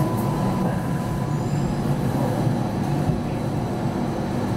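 Hong Kong Light Rail Phase I tram-train heard from inside the car as it slows to a stop at a platform: a steady low running rumble, with a thin whine that stops about a second and a half in.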